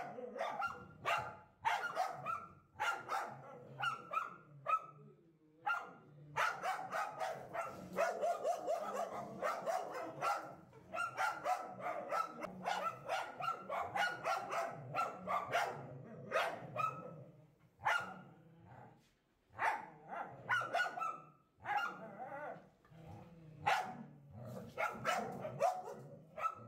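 Dogs barking over and over in quick runs of short barks with brief pauses: alarm barking at a spectacled cobra they have cornered.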